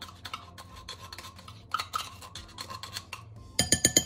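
A metal spoon scraping the inside of a tin can of sweetened condensed milk, in many small strokes, then a quick run of ringing taps near the end.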